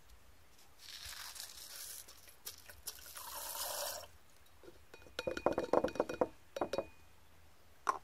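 Small cut pieces of gold-plated connectors poured from a plastic cup into a glass beaker of water: a rattling hiss of metal bits sliding out for about three seconds. Then two quick clusters of sharp clinks on glass, and a single click near the end.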